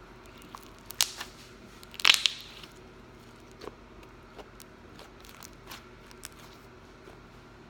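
Homemade butter slime being squished and poked for ASMR, giving scattered small clicks and pops, loudest about one and two seconds in.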